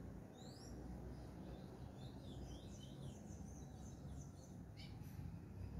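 Small birds chirping faintly outdoors: a few short rising calls about half a second in, then a cluster of quick twittering calls in the middle. Underneath is a steady low rumble of ambient noise.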